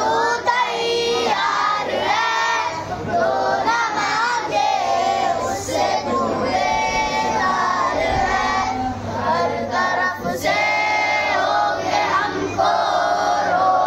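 A group of children and adults singing together in chorus.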